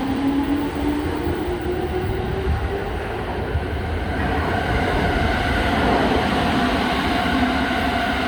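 E231-800 series electric train pulling out and accelerating. Its inverter-driven traction motors whine in tones that rise in pitch, and a new set of higher tones comes in about halfway through, over a low rumble of wheels on the rails.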